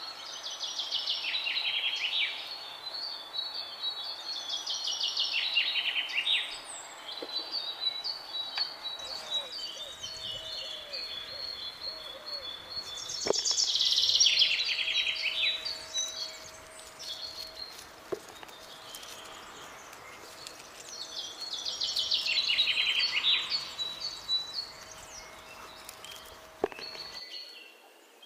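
Songbirds singing: a trilled song phrase that falls in pitch, repeated every few seconds, with other thinner bird calls behind it. The background changes suddenly near the end.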